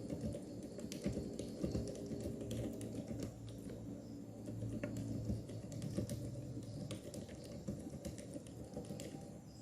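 Continuous fast typing on a Meca 6 Plus mechanical keyboard fitted in an acrylic gasket-mount case: a dense, unbroken stream of keystroke clicks.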